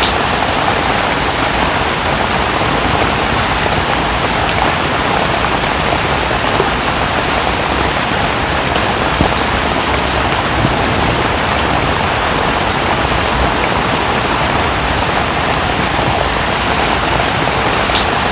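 Steady rainfall: a dense, even hiss with many small, sharp drop ticks scattered through it.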